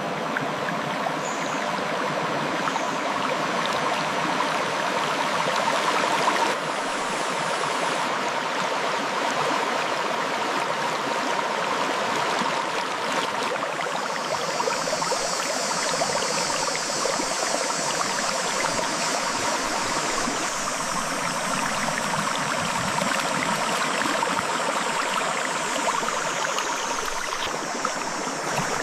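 River water flowing steadily over rocks, a continuous rushing and burbling. A higher hiss joins the water about halfway through.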